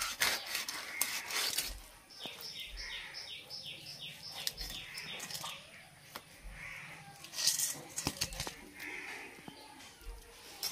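A small bird calling in a quick run of short falling chirps, about three a second, for a couple of seconds, then a few more later, among occasional sharp knocks.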